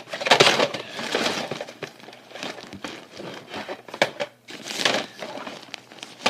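Rustling, crinkling and clattering of plastic toys being handled and put away, with many small knocks.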